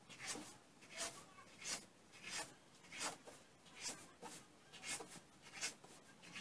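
A knife cutting a rolled rope of yeast dough into small pieces, each cut a soft scrape against the tabletop. The strokes are faint and come regularly, about one and a half a second.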